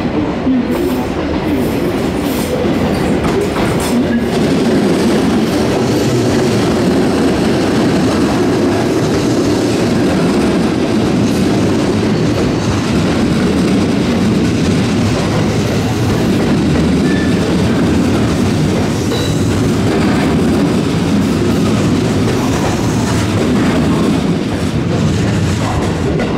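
JR 221 series electric multiple unit, coupled with a 223 series set, running slowly into the station platform: a steady, loud sound of wheels on rails as the cars pass.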